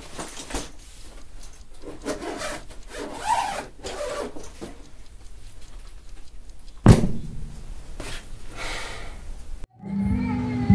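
A soft-sided fabric suitcase being zipped shut and handled: several rubbing, zipping strokes, then one loud thump about seven seconds in. Music begins near the end.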